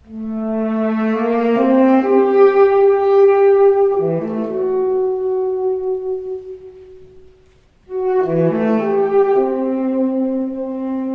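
Live chamber ensemble of tenor saxophone, strings, French horn and trumpet playing held, layered chords in two phrases. The first swells and fades away about seven seconds in; the second enters sharply about a second later.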